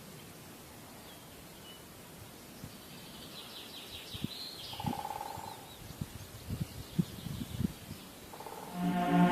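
Faint outdoor ambience with a few brief bird chirps and some scattered soft low thumps; music starts right at the end.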